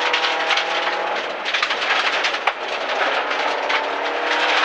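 Rally car engine pulling hard along a straight, heard from inside the stripped cabin over loud road noise; the engine note breaks off with a gear change about a second and a half in, then climbs again as the revs rise.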